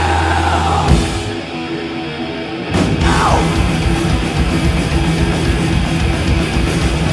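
Thrash metal band playing loud and live: distorted electric guitars, bass and drums. The band eases off about a second in, then comes back in full near three seconds in with a falling sweep.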